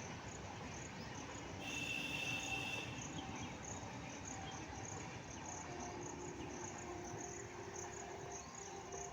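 Background insects chirping: a high, evenly pulsing chirp about three times a second, with a brief higher buzz about two seconds in.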